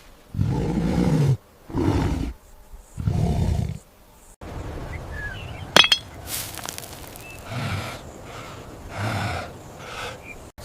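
Three loud roars from a large animal in the first four seconds, each about a second long, followed by a quieter stretch with a sharp clink about six seconds in and softer calls after.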